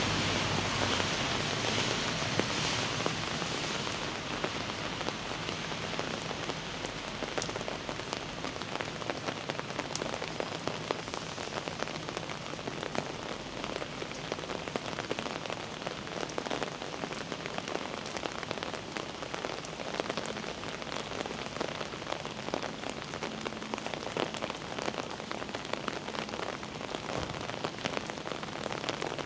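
Heavy rain falling on a city street, with a dense scatter of close drop hits. A louder hiss at the start fades away over the first few seconds.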